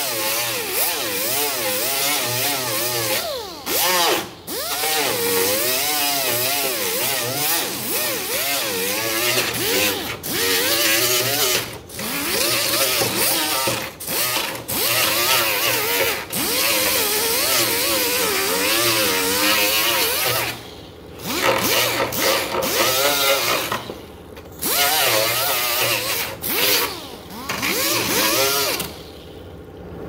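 Power grinder grinding down cured fibreglass mat and resin on a car hood. Its whine wavers up and down as the disc bites and eases, and it breaks off briefly several times.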